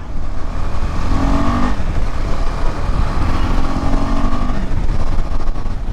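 KTM 250 Adventure single-cylinder motorcycle engine running steadily while riding, with wind noise on the microphone.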